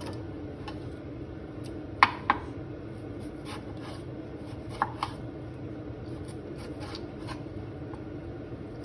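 Kitchen knife cutting a tomato into big cubes on a wooden chopping board: scattered knife taps on the board, the loudest a pair about two seconds in and another near five seconds, over a steady low hum.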